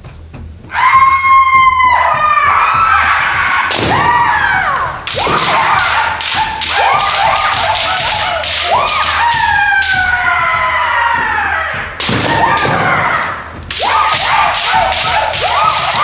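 Kendo bout: competitors' high-pitched kiai shouts, long and often falling in pitch, starting about a second in, mixed with many sharp cracks and thuds of bamboo shinai strikes and stamping feet.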